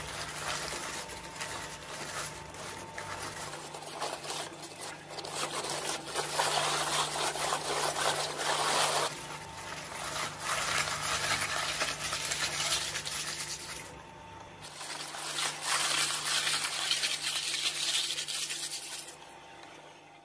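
Electric twin-shaft shredder chewing up a whole head of cabbage: the steel cutter discs crunch and tear through the leaves over a steady motor hum. The crunching is loudest in two long stretches with a brief lull between them, and fades out near the end as the cabbage is used up.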